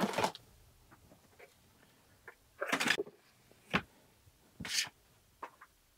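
A few short rustles and knocks from objects being handled on a worktable, the loudest a little under three seconds in.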